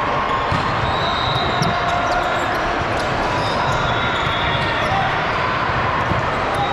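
Busy volleyball tournament gym: a steady murmur of many voices, with balls thudding on the court and short high sneaker squeaks scattered throughout.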